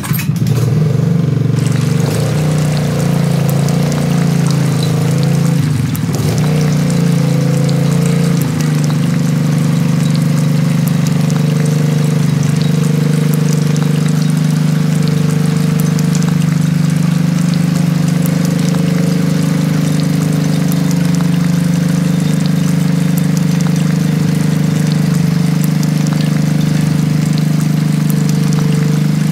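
Small homemade electric water pump running with a steady motor hum, water pouring and trickling. The hum wavers for the first several seconds, then holds steady.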